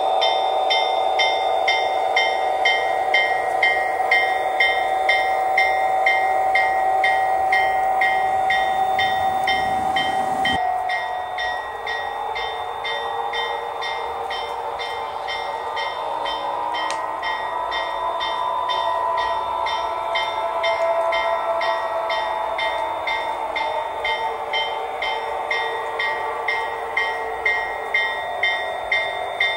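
Sound-equipped HO-scale Norfolk Southern diesel locomotives running under DCC: the decoders' diesel engine sound plays from small speakers over a regular clicking a few times a second. The engine tone shifts about ten seconds in.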